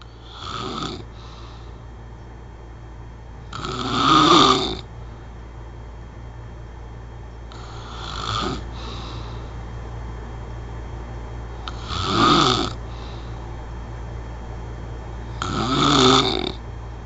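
A person snoring: five snores about four seconds apart, each about a second long, over a steady low hum.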